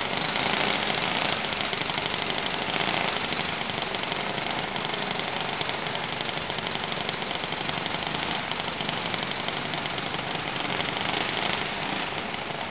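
Kid kart engines running steadily as the small karts race around the track.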